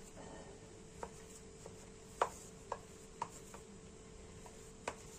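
Hands dividing bread dough into pieces on a glazed clay dish: about five short, light taps and knocks spread through the stretch, over a faint steady hum.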